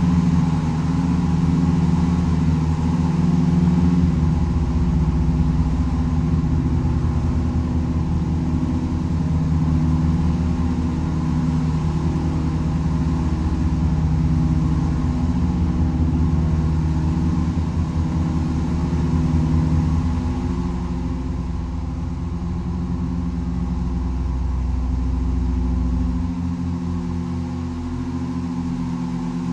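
Wolff & Associés pipe organ (opus 24) holding sustained low tones that beat against one another, with amplified percussion buzzing as it vibrates in sympathy. A very deep tone comes in about four seconds in and drops out near the end, and the tones above it shift partway through.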